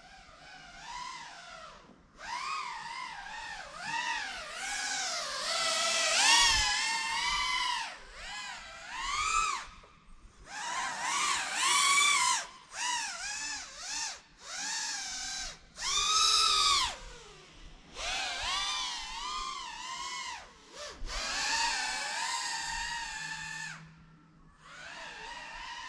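GEPRC FPV quadcopter's brushless motors whining in flight, the pitch sweeping up and down with the throttle and cutting out briefly several times as the throttle is dropped. The whine is loudest in a few close passes.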